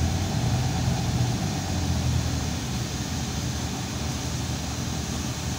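Irisbus Citelis 12 m city bus engine running under way, heard inside the bus with road noise. The engine note eases off about halfway through.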